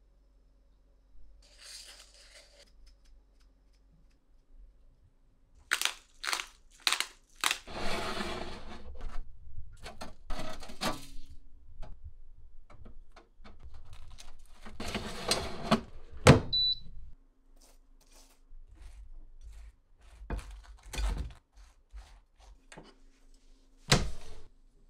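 Objects being handled: scattered clicks and knocks, two longer stretches of rustling, and one sharp knock, the loudest sound, about sixteen seconds in.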